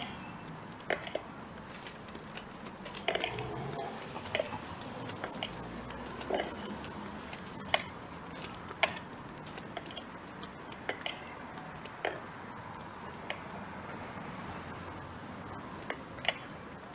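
Handling noise from a hand-held phone while walking: irregular sharp clicks and brief rustles, about one a second and uneven, over a steady background hiss.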